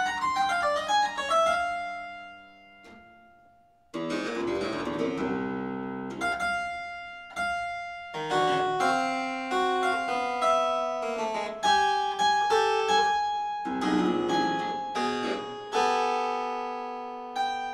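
Solo harpsichord playing a fast contemporary piece: a quick descending run dies away to a brief pause, then rapid runs and plucked chords start again about four seconds in and continue.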